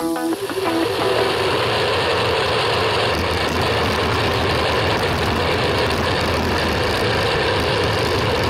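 Steady rush of wind over the microphone of a camera on a moving road bike, mixed with the rolling noise of bicycle tyres on highway asphalt.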